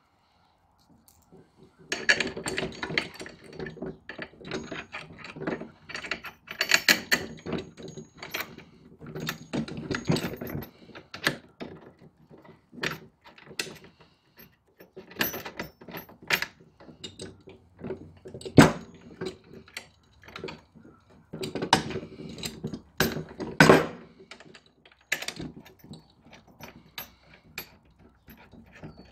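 Steel bolts, nuts and mounting brackets of a lawn-mower striping kit clinking and clicking as they are fitted and threaded on by hand. Irregular clicks and knocks start about two seconds in, with a few sharper knocks past the middle.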